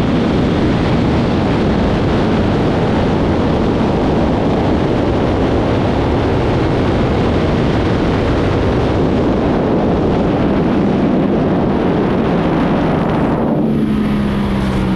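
Sport motorcycles at high speed: a steady rush of wind over the helmet or bike-mounted microphone buries the engines. Near the end the wind drops and an engine note comes through, falling slowly as the bike slows.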